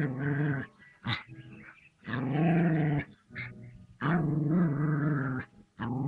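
A puppy growling in a series of long, low growls, each about a second, with short pauses between.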